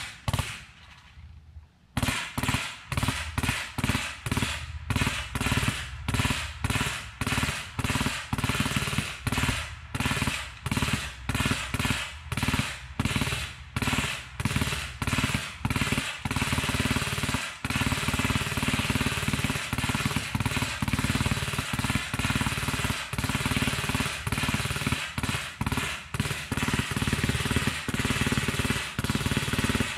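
Automatic gunfire: a single shot, a short pause, then a long run of rapid repeated shots that grows into a nearly unbroken rattle past the middle.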